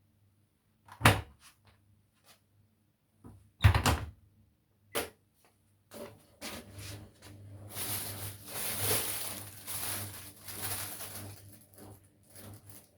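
Washing machine: two heavy thunks and a lighter knock over a faint low hum, then from about six seconds in a continuous hissing, splashing rush with small rattles.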